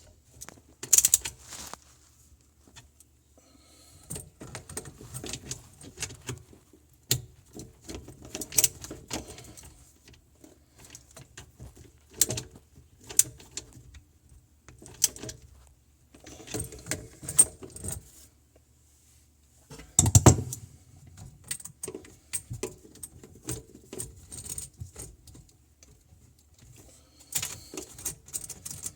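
Irregular clicks, knocks and rattling of drain pipe fittings being handled and fitted under a sink, in short bouts with pauses, with one louder knock about two-thirds of the way through.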